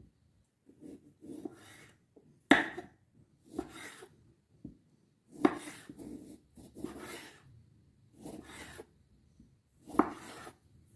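Food preparation on a wooden cutting board: irregular knife strokes and scraping, with three sharp knocks of the blade on the board.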